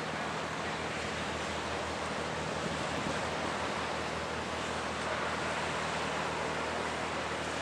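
Steady rushing noise of wind and water with a low, even engine drone underneath from a passing motor yacht.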